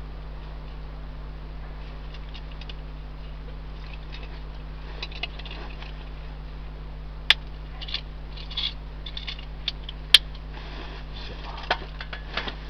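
Charcoal burning in a small tabletop grill, crackling with scattered sharp pops, the two loudest about 7 and 10 seconds in, over a steady low hum.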